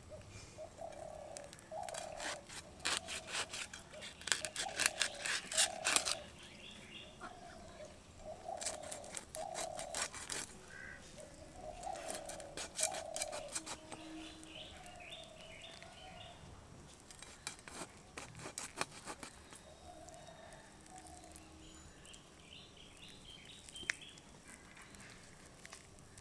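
Climbing perch being scraped against the blade of a boti to strip its scales, heard as three bursts of quick rasping strokes. Birds call and chirp in the background.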